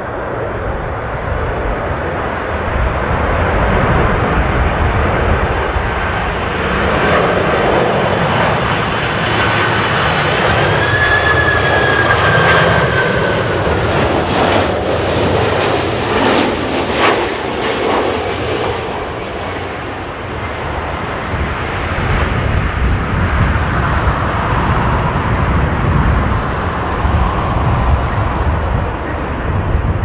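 Japan Airlines Boeing 767 on low final approach, its twin turbofan engines running with a high whine that rises in pitch about ten seconds in, over a steady jet roar.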